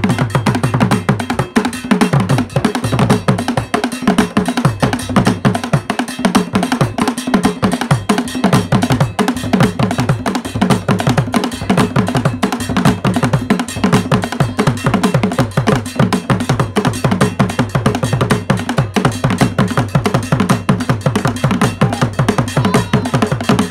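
A drum ensemble of several large standing drums beaten with sticks, playing a fast, continuous interlocking rhythm.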